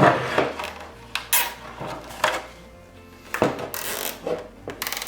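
Nylon zip ties being pulled tight through drilled holes in a plastic snowmobile windshield, with quick ratcheting zips and scattered clicks and clatter of plastic being handled. A rapid run of fine ratchet clicks comes a little before the end.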